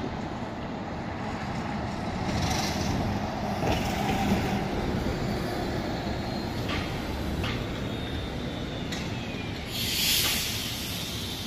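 City buses, among them an electric trolleybus, running past in street traffic. Short air-brake hisses come about two and a half seconds in and again near the end, the second one louder, with a faint whine falling in pitch and a few clicks in between.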